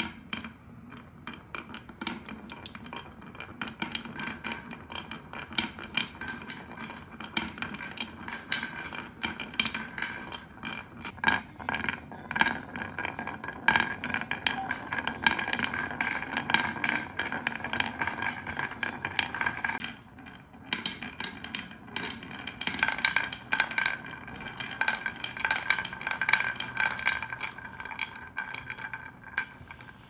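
Several glass marbles rolling down a zigzag groove carved in a pine-wood board, a steady rolling hum with fast irregular clicks as they strike the curves of the track and each other. The sound drops briefly about twenty seconds in, then picks up again.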